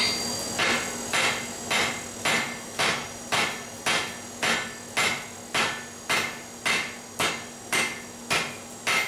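Blacksmith's hand hammer striking a steel bar on an anvil in a steady rhythm, about two blows a second, each with a short metallic ring, as a long taper is drawn out to a point.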